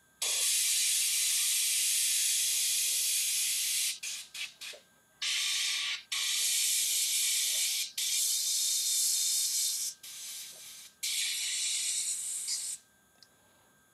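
Airbrush spraying thinned metallic paint: a hiss of air and paint from the nozzle in a string of bursts. First one long spray of about four seconds, then a few quick puffs, then several sprays of one to two seconds each, each starting and stopping sharply.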